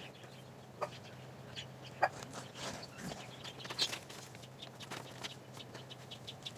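Scattered light knocks and clicks as a Onewheel GT electric board is handled and turned over on a wooden deck, over a faint steady low hum.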